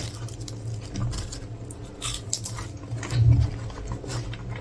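A person chewing a mouthful of smash burger close to the microphone: irregular small clicks and mouth sounds, with a louder low burst about three seconds in.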